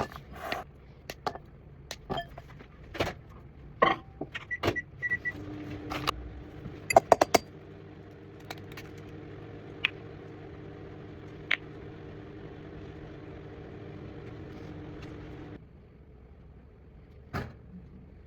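Clatter of kitchen utensils and a few short high beeps, then a small kitchen appliance motor runs with a steady hum for about ten seconds and stops abruptly.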